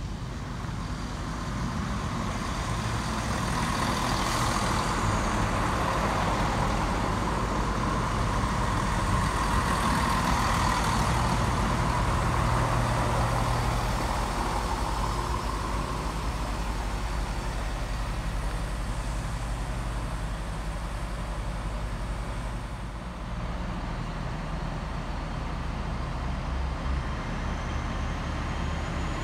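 Diesel train at a station platform, its engine running with a steady low drone while a rumbling noise builds over the first few seconds, holds, and fades away over the second half.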